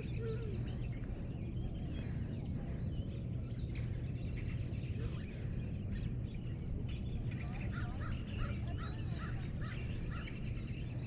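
Birds chirping and calling over a steady low outdoor rumble, with a quick run of about half a dozen chirps near the end.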